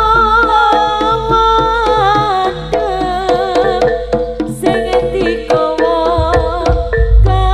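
Live Javanese jaranan gamelan music: kendang drums and bonang kettle gongs beat a fast, even rhythm under a held, wavering melody line, with a steady low gong drone. Heavier low drum or gong strokes come in near the end.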